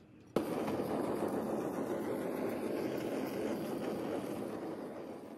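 Handheld kitchen blowtorch flame, starting suddenly about half a second in and then hissing steadily as it chars the cheese topping of a pizza, easing off slightly before it cuts out near the end.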